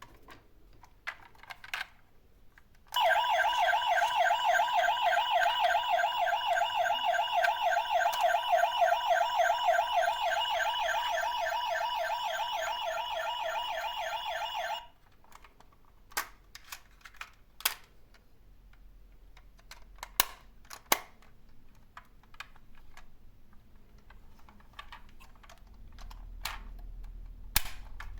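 A toy emergency vehicle's siren sounding in a fast, even warble for about twelve seconds, then cutting off suddenly. Light clicks and knocks come before and after it.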